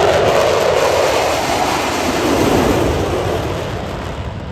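Roar of a jet aircraft flying past, its pitch dropping as it goes by and the sound fading steadily as it moves away.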